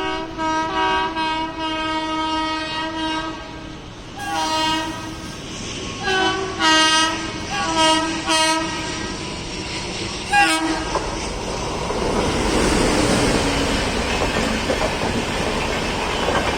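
WAP-7 electric locomotive's horn sounding a quick rhythmic run of short honks, then several more bursts and a last short toot about ten seconds in. After that the train rolls past, its wheels clattering over the rail joints with a rising rumble.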